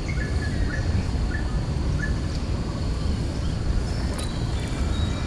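Steady low rumble of outdoor river ambience, with several short, faint high bird chirps in the first couple of seconds and a few light clicks about four seconds in.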